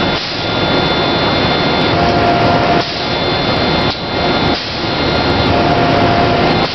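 Tornado 60.70 airless paint sprayer at work, a loud steady rushing hiss that drops out briefly a few times, as when the spray is interrupted.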